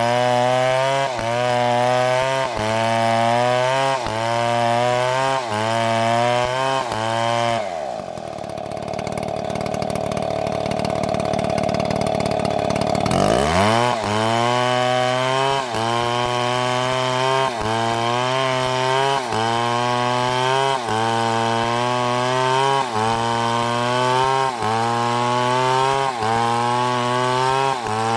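Two-stroke chainsaw cutting a tree, its engine pitch rising and dipping in an even pulse about three times every two seconds. About eight seconds in, the engine speed drops sharply as the saw bogs down in the cut for about five seconds, then climbs back to the pulsing rhythm.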